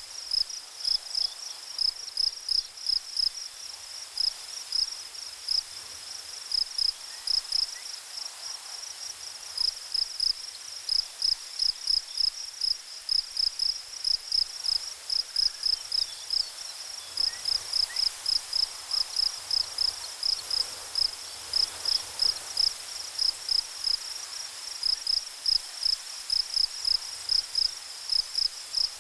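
Insect chirping like a cricket: a short, high note pulsed a few times a second in uneven runs, over a faint steady hiss.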